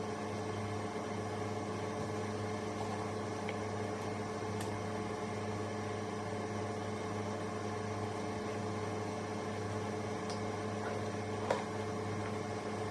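Steady electrical hum, several even tones held without change, with a faint click about eleven and a half seconds in.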